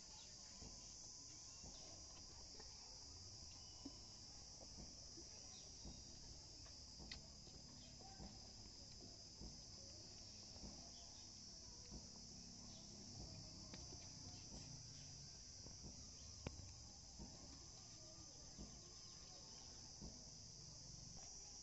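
Near silence, with a faint, steady chirring of crickets and a few soft scattered clicks.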